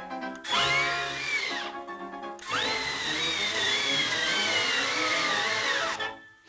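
Cartoon wind effect of the Big Bad Wolf huffing and puffing: long blowing gusts, each a rushing hiss with a whistling tone that rises and then falls. One gust runs through the first couple of seconds, and a longer one starts about two and a half seconds in and dies away near the end. Orchestral score plays underneath.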